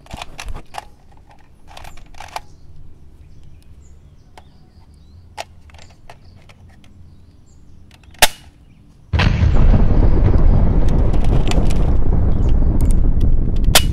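Light plastic clicks from a toy grenade-launcher gun being handled, then one sharp snap about eight seconds in as it fires. About nine seconds in, a loud explosion sound effect cuts in suddenly and carries on as a dense rumbling blast.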